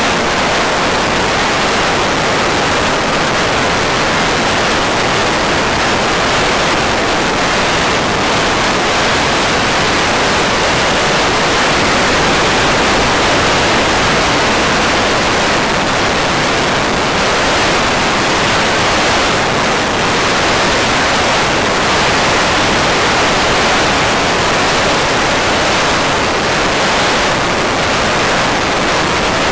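Steady, even hiss of static from an analog FPV video receiver's audio channel, with no motor sound.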